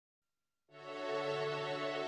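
Silence, then background music with sustained held tones begins under a second in.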